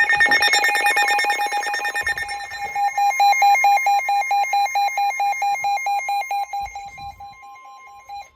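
Several weather radio receivers sounding their alert: a fast, pulsing electronic beep with a steady, high warning tone joining it about three seconds in, the NOAA Weather Radio 1050 Hz alarm that signals an incoming warning, here a severe thunderstorm warning. The beeping fades near the end while the steady tone goes on.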